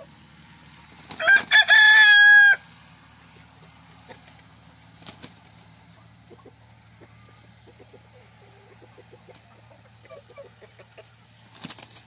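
A rooster crows once, loud and clear, about a second in, lasting about a second and a half. Soft, short clucks from the flock follow.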